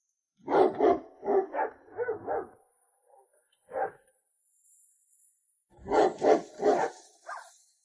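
Dog barking in short bursts: a quick run of about six barks, a single bark about four seconds in, then another run of barks near the end.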